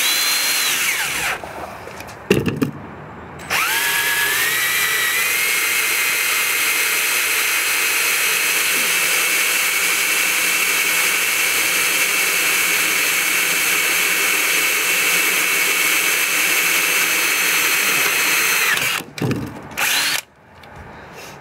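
Power drill with a 3/16-inch bit drilling a hole through the Jeep JK tailgate panel. The motor whine winds down about a second in, stops briefly with a couple of clicks, spins back up with a rising whine and runs steadily, then winds down near the end with a few more clicks.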